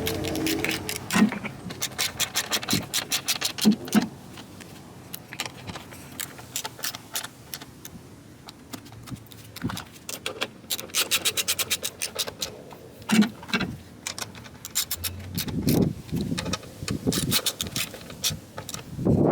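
Hand ratchet clicking in quick runs as bolts are turned down, broken by pauses and a few dull knocks.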